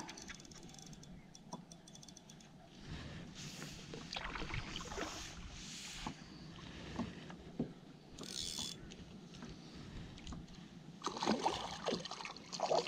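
Small waves lapping against a kayak hull while a hooked bass is brought in. About 11 seconds in come louder splashes as the fish thrashes at the surface beside the kayak.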